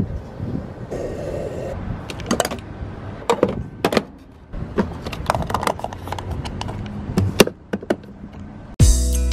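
Clicks and knocks of a petrol pump nozzle being hung back on the pump and a car's fuel flap being shut. Guitar music starts suddenly near the end.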